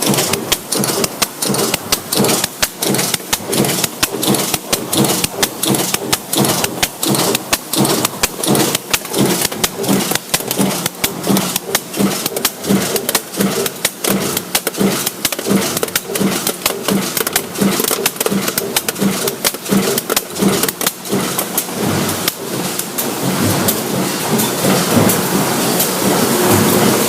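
Factory machinery clattering: a fast, regular run of sharp metallic impacts, several a second, over a steady mechanical din that grows louder over the last few seconds.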